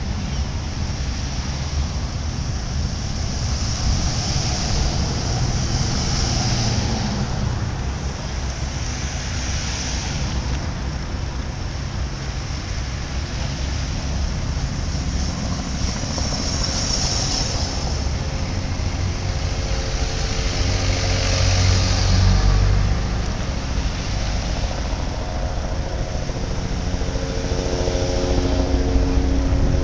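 Cars passing one after another on a street: engine and tyre noise that swells as each vehicle goes by. In the last third a steadier engine drone joins in.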